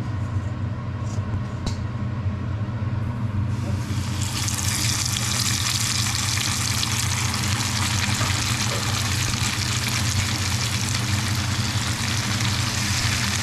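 Boat engine running with a steady low hum; about four seconds in, a loud hiss of rushing water sets in over it.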